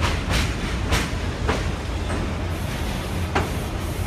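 Vintage stainless-steel R11/R34 subway car rolling slowly along the platform track: a steady low rumble with about four sharp wheel clicks over the rail joints, and a high hiss joining in during the second half.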